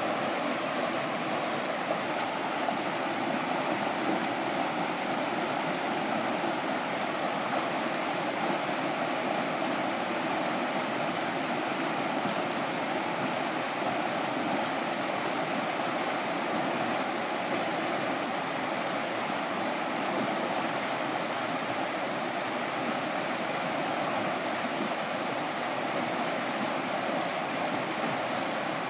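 Whitewater rushing steadily as a stream pours through a small concrete weir and churns in the rapids below it.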